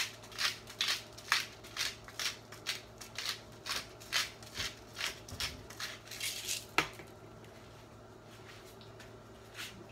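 Pepper mill being twisted, a quick even run of short scratchy grinding strokes, about two or three a second. The strokes stop about seven seconds in, ending with a single sharp click.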